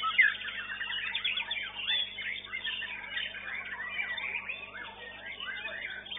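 White-rumped shamas (murai batu) singing at once: a dense, unbroken tangle of quick whistles, trills and chirps.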